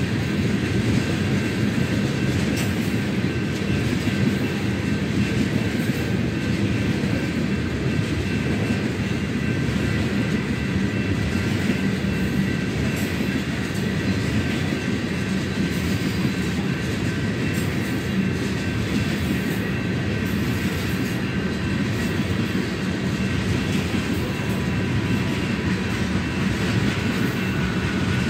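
A freight train of tank cars rolling steadily past, a continuous low rumble of steel wheels on rail with faint steady high ringing tones above it.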